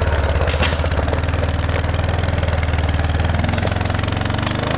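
ATV (four-wheeler) engine running at low revs, rising a little in pitch about three and a half seconds in as the machine drives up the loading ramps.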